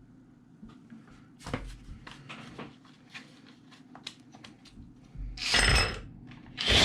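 Small clicks and knocks from handling the RC car's wiring, then two loud noisy pulls about a second apart near the end, likely electrical tape being pulled off the roll to wrap the joined wires.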